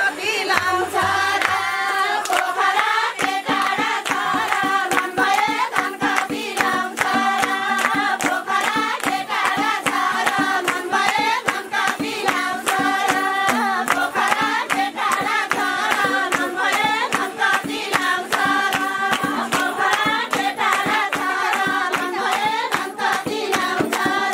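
A group of women singing together, with rhythmic hand clapping and a barrel-shaped hand drum keeping a steady beat.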